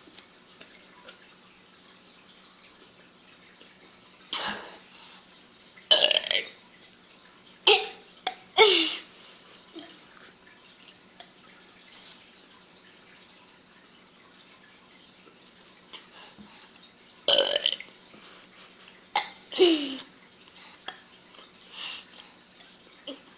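A girl burping over and over: about seven short burps in two bunches, one around four to nine seconds in and another around seventeen to twenty seconds, several of them dropping in pitch at the end.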